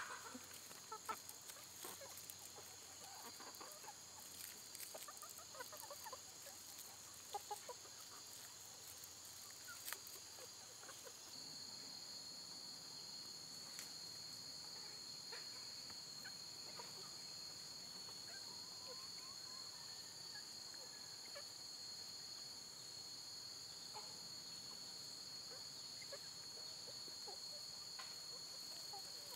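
Chickens clucking now and then during the first ten seconds or so, over a steady high-pitched insect drone that grows louder about eleven seconds in and then holds. A few faint sharp clicks are scattered through it.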